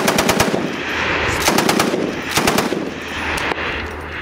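Belt-fed machine gun firing short bursts of automatic fire, about four bursts of several rapid shots each. The shots echo and roll on between the bursts.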